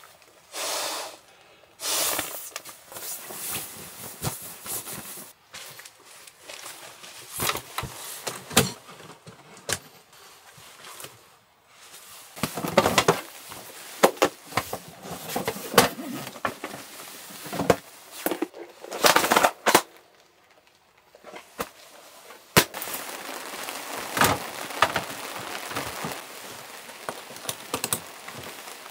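Camp gear being handled: the nylon shell of a down sleeping bag rustles, then scattered knocks and clatter come as hard round items are packed into a fabric storage bag, with several louder bursts of rustling.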